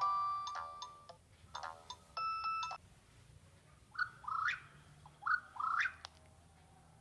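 Nokia 6600 ringtones playing from the phone's speaker: an electronic melody fades out in the first second, a few short notes and a brief beep follow about two seconds in, then two pairs of rising chirping whistles.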